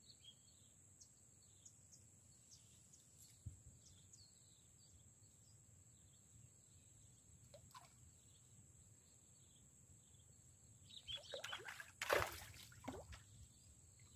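Faint outdoor ambience: small birds chirping and a steady high-pitched whine, then a short flurry of louder rustling noise about three seconds before the end.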